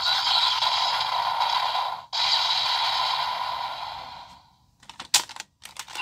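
Seiken Swordriver toy belt's speaker playing a hissy, crackling sound effect. It cuts out for a moment about two seconds in, then resumes and fades away. Sharp plastic clicks follow near the end as the wonder ride book is handled and pulled from the driver.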